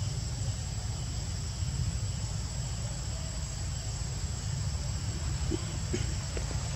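Steady high-pitched chorus of insects in the trees, over a low steady rumble, with a few faint clicks near the end.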